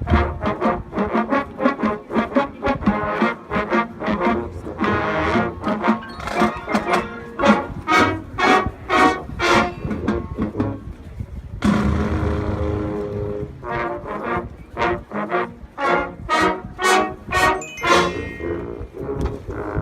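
High school marching band playing: brass in short, accented rhythmic hits, with a held full chord about twelve seconds in.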